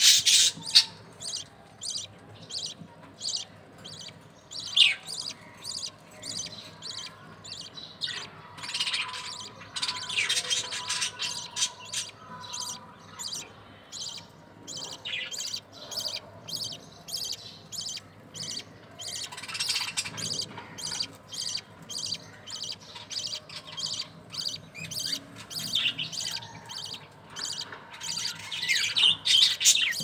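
Budgerigars chirping around a nest of newly hatched chicks: a fast, steady run of short high chirps, with louder spells of chatter every several seconds.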